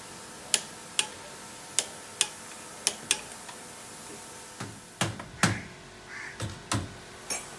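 Installation tool work: six sharp clicks spaced irregularly over the first three seconds, then a cluster of heavier knocks about five seconds in.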